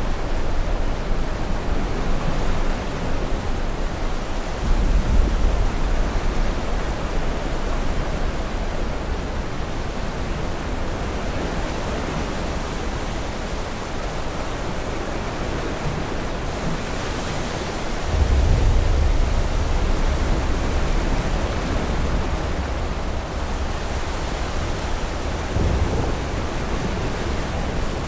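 Storm ambience: a steady rushing noise with deep rumbles of distant thunder swelling about five seconds in, again around eighteen seconds in, and briefly near the end.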